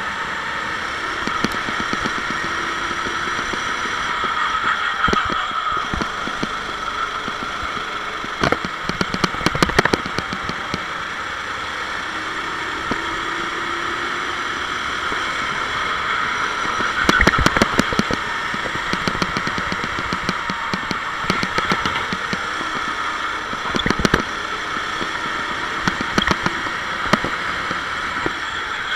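Sodi SR4 rental kart's four-stroke engine running at racing speed as heard from the kart, its note rising and falling a little through the corners. Bursts of rapid rattling clicks come about a third of the way in and again just past the middle.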